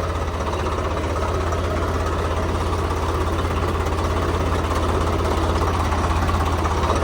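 Diesel engine running steadily at idle-like speed, with an even low pulsing beat.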